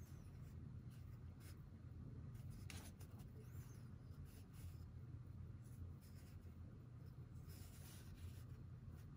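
Ink brush pen tip drawing faintly across IKEA MÅLA drawing paper in a few short, soft strokes, over a low steady room hum.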